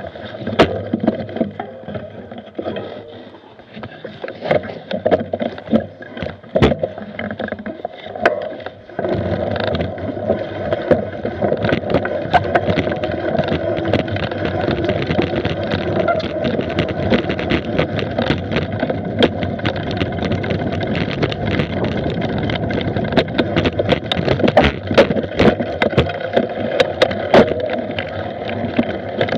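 Mountain bike ridden fast over a forest dirt trail, heard from a camera on the bike or rider: tyres rolling over dirt and roots with frequent sharp knocks and rattles from the bike, over a rumble of wind and motion noise on the microphone. About nine seconds in, the rumble becomes steadier and louder as the pace picks up.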